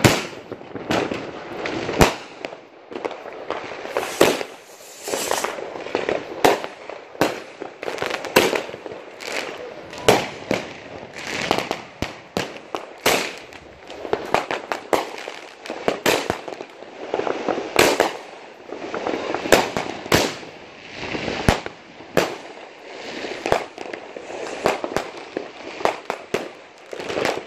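Fireworks going off: rockets and firecrackers bursting in a long run of sharp bangs at irregular intervals, sometimes several a second, with crackling and hissing between the bangs.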